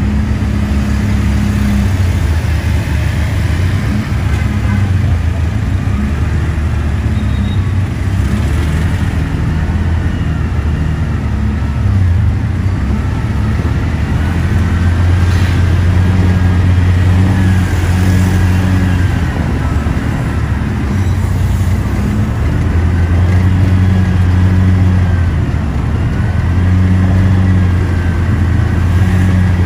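Engine of the vehicle carrying the camera running steadily as it drives through motorbike traffic, a low drone that swells a little at times, with the hiss of the street around it.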